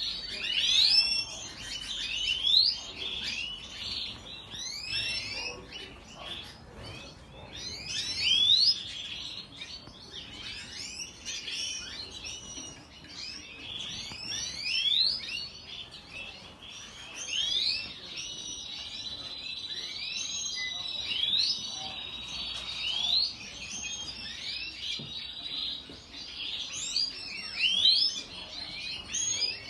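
Many caged songbirds in a bird room chirping and singing together, a busy stream of quick overlapping high sweeping notes. A single high steady note is held for several seconds midway through.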